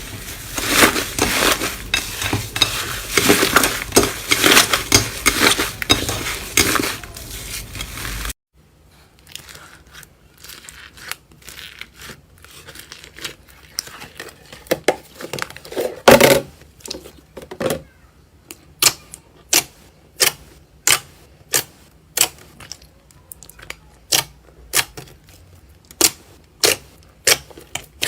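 Slime being squeezed and handled: dense crackling and crunching for about eight seconds, then, after a cut, quieter sticky clicks and pops, about one to two a second.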